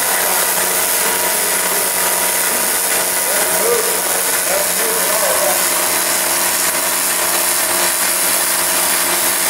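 Automated arc-welding torch laying a weld overlay on a horizontal drum: the arc gives a loud, steady crackling hiss, with a faint steady hum underneath.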